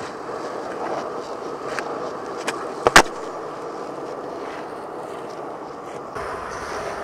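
Skateboard wheels rolling steadily on a hard tennis-court surface. At about two and a half seconds the tail snaps as a 360 flip is popped, and half a second later comes a loud double clack as the board lands under the feet, then the rolling carries on.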